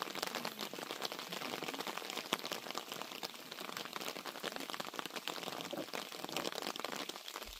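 Steady rain pattering, a dense run of fine irregular ticks.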